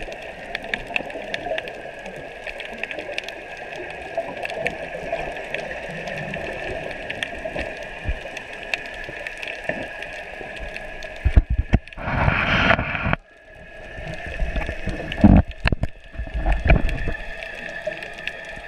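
Underwater sound through an action camera's housing: a steady hum with faint clicks. About eleven seconds in it turns to loud, uneven rushing and splashing of water, with a short near-silent gap a little after.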